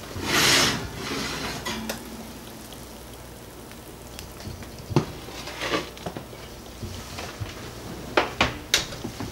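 Cast iron skillet dragged across a wire oven rack with a loud scrape, then set down on a glass-top stove with a sharp knock about five seconds in. Several sharp clacks near the end as the oven door is pushed shut.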